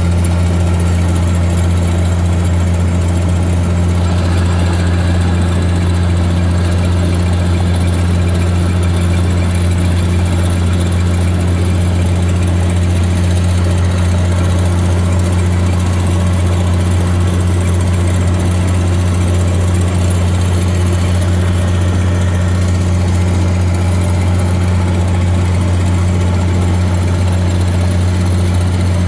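Steady low drone of engine and road noise inside a vehicle's cabin at highway cruising speed.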